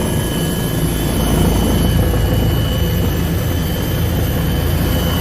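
Helicopter running steadily: a continuous deep rumble with a thin, steady high whine over it.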